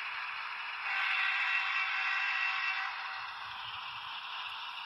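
Broadway Limited N scale AC6000CW model locomotive's Paragon 3 sound system playing diesel engine running sound through its tiny onboard speaker, thin and without bass. It gets louder about a second in and eases off around three seconds.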